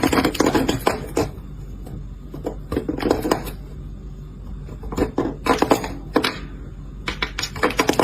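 Irregular clatter of small knocks and clicks, like hard objects or dishes being knocked about, over a steady low hum.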